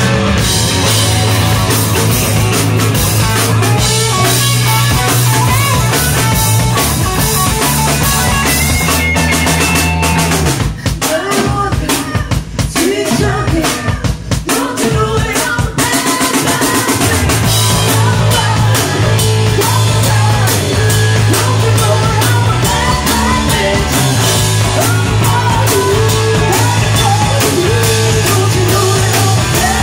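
A live rock band plays loudly, with drums, electric guitar and a singer. About ten seconds in, the low sustained notes drop out for several seconds of mostly drums, then the full band comes back in.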